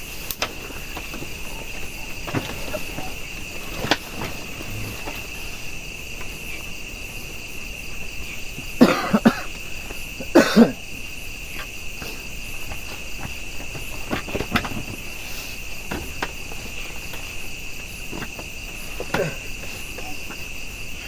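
Night chorus of crickets and other insects, a steady high-pitched trill that holds level throughout. Two brief louder sounds break in near the middle, a second and a half apart.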